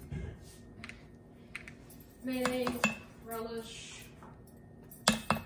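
A measuring spoon clinking against a stainless steel cooker pot as ground spice is added: a few quick, sharp clinks near the end.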